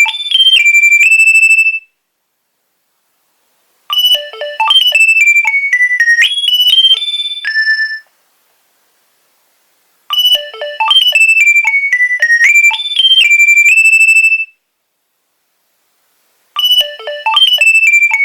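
Nokia 2300 mobile phone ringtone playing: a short, high electronic melody that repeats, with a pause of about two seconds between repeats.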